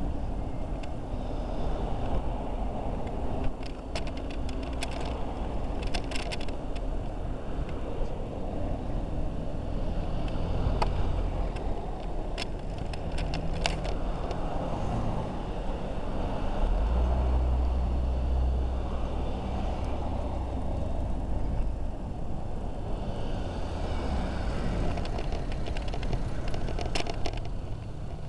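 City road traffic, with cars passing steadily. A deeper, heavier rumble swells a little past halfway, and a few sharp clicks come through at intervals.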